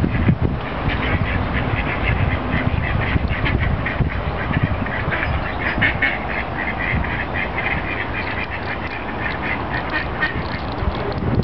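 Ducks quacking in a long, rapid run of short calls, over a low rumble of wind on the microphone.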